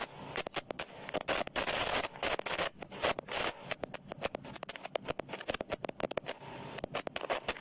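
Tape rewinding sound effect: rapid, irregular chattering and scratchy clicks over a steady high whine.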